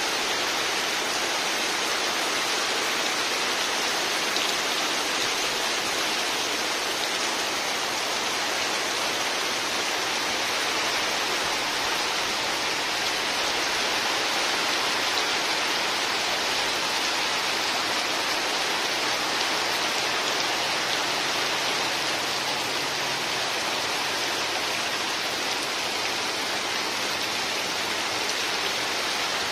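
Heavy rain pouring steadily onto river water and moored boats, an even hiss with no let-up.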